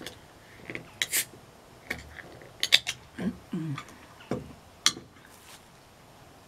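A can of non-carbonated soft drink being handled and its pull tab opened: a series of sharp clicks and metallic snaps, loudest a little under three seconds in.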